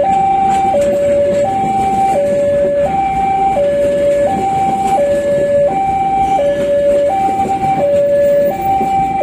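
Railway level-crossing warning alarm sounding a steady two-tone high-low signal, the pitch switching about every 0.7 seconds, which means the crossing is closed for a train. Under it is the rumble of railway carriages rolling past on the track.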